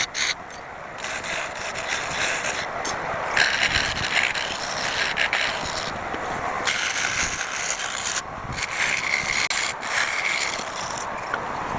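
Wood turning on a lathe while a turning tool cuts and scrapes it: a steady scraping hiss that changes in tone and breaks off abruptly several times.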